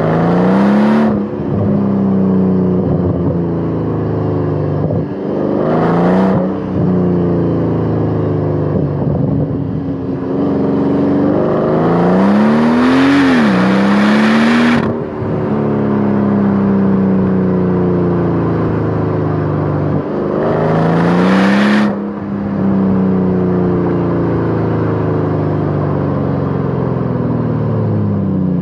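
Mercedes SL65 AMG's twin-turbo V12 through a RennTech exhaust, pulled hard four times: the engine note climbs under full throttle, drops at each upshift, and falls away as the car eases off between pulls. Near the end the revs fall steeply.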